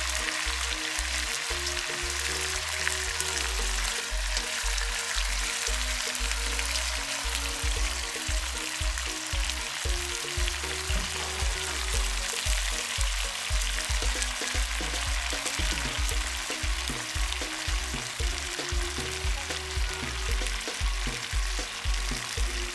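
Marinated meat chunks sizzling steadily as they sear in a stainless steel pot, with background music and a regular bass beat underneath.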